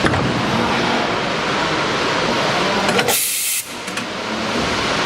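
Steady running noise of a horizontal liquid silicone rubber injection moulding machine, with a sharp hiss of air lasting about half a second, about three seconds in.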